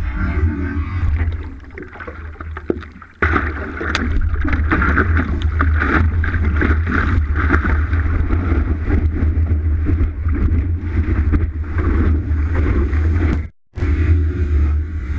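Water rushing and splashing around a stand-up paddleboard, picked up by a camera mounted on the board's nose, over a constant heavy low rumble. The sound is quieter for the first three seconds, then jumps abruptly louder. It cuts out briefly near the end.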